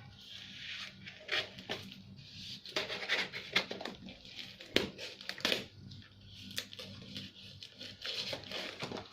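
Hands opening a shipping package: packaging rustling and crinkling, with scattered clicks and knocks.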